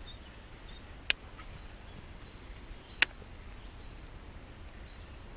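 KastKing Assassin baitcasting reel being cranked on a retrieve: soft, steady handling noise with two sharp clicks about two seconds apart, one about a second in and one about three seconds in.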